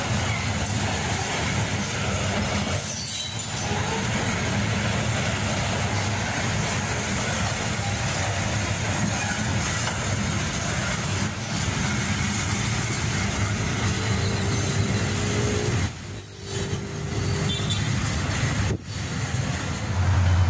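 Freight train's hopper cars rolling past at close range: a steady noise of steel wheels on rail with a low hum underneath, dipping briefly a few times.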